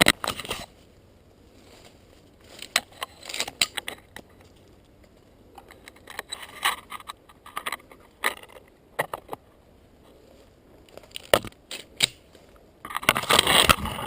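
Irregular bursts of close crunching, rustling and clinking, with short quiet gaps between them; the loudest burst comes near the end.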